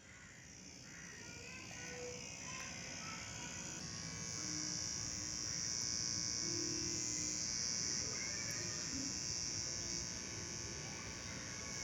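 Homemade mini water pump's small electric motor running with a steady high buzz. It grows louder over the first several seconds, then holds.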